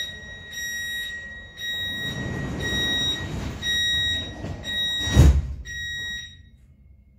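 Door-closing warning on a Siemens C2 Munich U-Bahn train: a high beep that repeats about once a second, about seven times. Under the beeps the sliding doors run shut with a low rumble and close with a loud thud about five seconds in.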